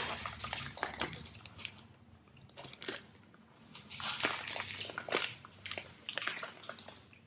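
Cellophane wrap crinkling and crackling as it is torn open and peeled off a small cardboard perfume box, in several bursts of rustling with short pauses between.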